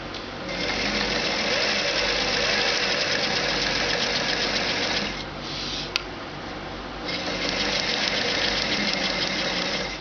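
Electric sewing machine stitching fabric with a fast, even needle clatter. It runs for about five seconds, stops, and after a single sharp click runs again for about three seconds.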